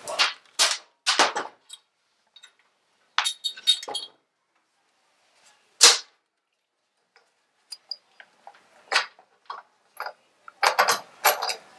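Metal tools and engine parts clinking and clanking as they are handled: a string of short, sharp knocks and clinks with gaps between them, thickest about a second in and again near the end.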